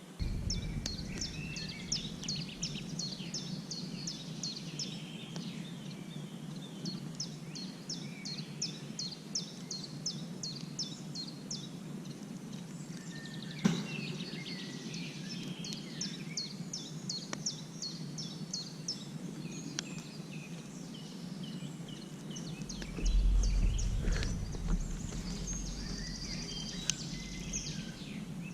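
Songbird singing: rapid runs of high, evenly repeated chirps, each run lasting a couple of seconds, over a steady low background noise. A single sharp knock about halfway through, and a low rumble for a few seconds near the end.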